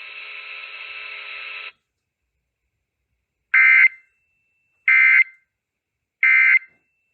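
Steady radio hiss that cuts off after under two seconds, then three short, identical Emergency Alert System end-of-message data bursts, the buzzy two-tone digital code, about 1.3 seconds apart, signalling the end of the alert.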